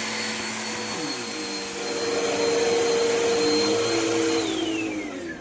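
Vacuum cleaner running with a steady motor whine; its tone shifts about a second in and it grows louder, then near the end the motor winds down with a falling whine.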